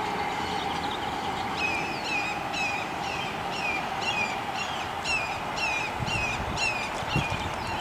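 A bird calling in a rapid series of short, downslurred, high calls, about two a second.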